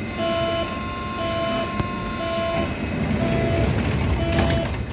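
Door-closing warning in a Berlin U-Bahn H-type train car: a short electronic beep about once a second, five times, over the car's low rumble.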